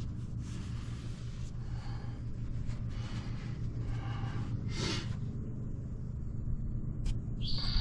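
Steady low rumble of a vehicle being driven, with some irregular rattle and road noise above it and a brief high-pitched tone near the end.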